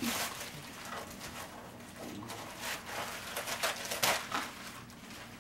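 Gift-wrapping paper crackling and ripping as a present is unwrapped by hand, in a run of short rustles with the loudest rip about four seconds in.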